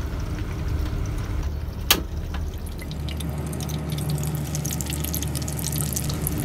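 Tilapia deep-frying in oil in a covered pan: a steady sizzle with scattered crackles and one sharp pop about two seconds in. The crackling grows denser and brighter after about four seconds, when the glass lid is lifted off.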